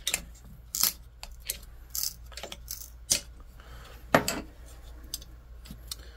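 Sharp metallic clinks and scrapes, about half a dozen of them, as the intake heater insert of a Toyota 1HD-FTE diesel intake is pried and worked loose by hand; the loudest comes about four seconds in.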